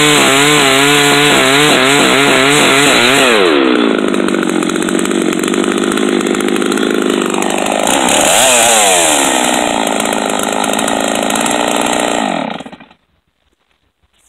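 Gas chainsaw in a chainsaw mill ripping a poplar log lengthwise into boards, running hard under load with its pitch wavering. About three and a half seconds in the pitch drops and the saw runs on with a rougher tone, then it dies away to silence about thirteen seconds in.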